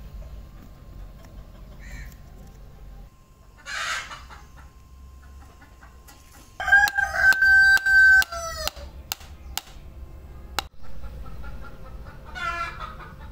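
A rooster crowing once, a loud call held for about two seconds that drops in pitch at its end, a little past the middle.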